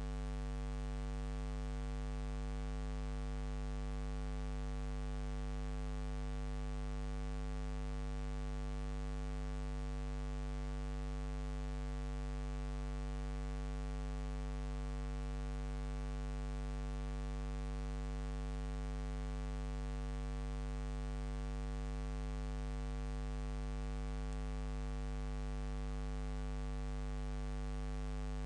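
Steady electrical mains hum with a buzzy hiss over it, low and completely unchanging.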